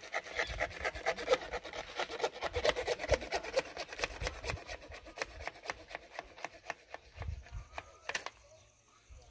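A hand tool scraping and chipping at the concrete around a recessed meter socket box: quick rasping strokes, several a second, ending with a sharper knock about eight seconds in.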